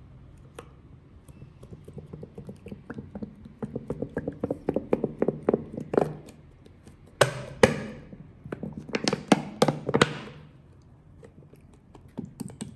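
Thin plastic bottle of glittery liquid soap squeezed as the thick soap pours out onto clear slime: a quick run of clicks and glugs, then a few loud crackling bursts from the squeezed plastic about seven and nine seconds in.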